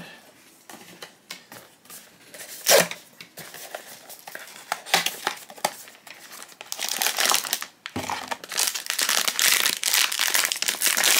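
A cardboard blind box being opened by hand: scattered small clicks and scrapes, with one louder sharp knock about three seconds in. From about six and a half seconds in, the foil inner bag crinkles steadily as it is handled, pausing briefly near the eight-second mark.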